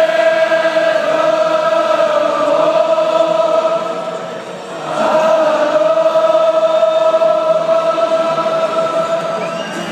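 Massed crowd of football supporters singing a slow anthem in unison, with long held notes; one phrase fades out about four and a half seconds in and the next begins about half a second later.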